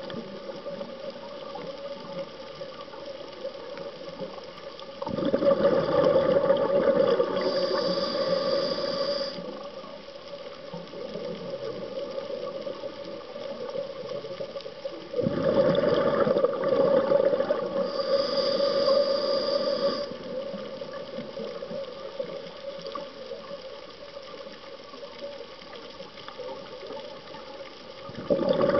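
Scuba diver breathing through a regulator underwater: a loud rush of exhaled bubbles starts suddenly about five seconds in, again about fifteen seconds in, and once more near the end, each lasting four to five seconds, with a quieter steady hum between breaths.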